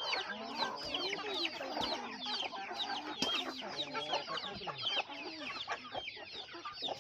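A flock of desi chickens clucking, with many short, high-pitched calls that drop in pitch over lower clucks.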